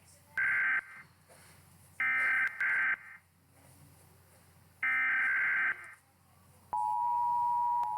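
US Emergency Alert System broadcast tones: three short bursts of screeching digital header data, then, about a second and a half before the end, the steady two-tone attention signal begins.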